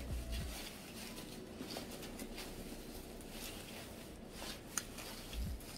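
Soft rustling of a white cloth dust bag and plastic wrapping being handled as a handbag is unwrapped, with a few faint clicks and taps.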